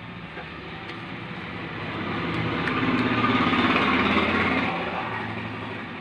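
A motor vehicle driving past: its engine noise grows louder, peaks a little past the middle, and fades away again.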